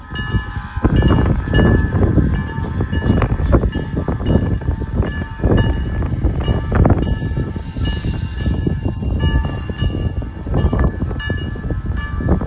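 Steam locomotive approaching slowly, its exhaust chuffing in irregular beats over a low rumble, while its bell rings over and over. A brief high hiss comes about seven seconds in.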